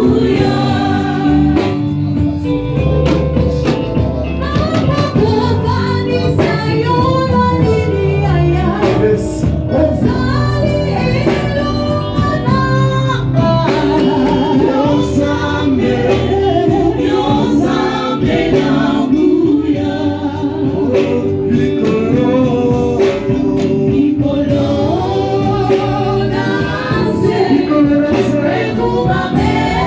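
Gospel music: a choir singing with instrumental accompaniment and a steady bass line.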